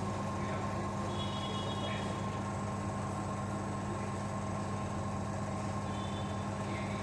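Vacuum pump of a digital vacuum leak tester running steadily, pulling vacuum in the test chamber: an even, unbroken mechanical hum.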